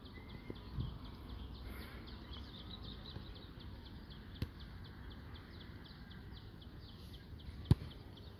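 Open-air ambience with a high chirping that repeats several times a second throughout, a faint click about halfway, and one sharp knock near the end that is the loudest sound.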